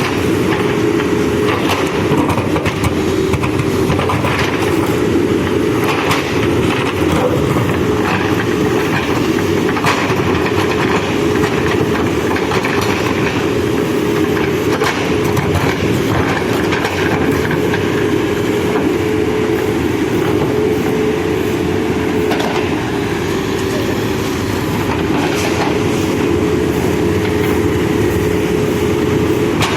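Manitou backhoe loader's diesel engine running steadily under working load, with a constant whine over it and frequent short clanks and scrapes from the digging and loading.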